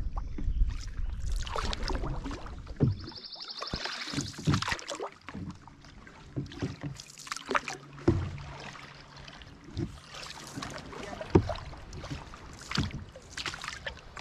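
Canoe paddle strokes: the blade dipping and pulling through the water with swishes and drips, and scattered knocks. Wind rumbles on the microphone for the first few seconds.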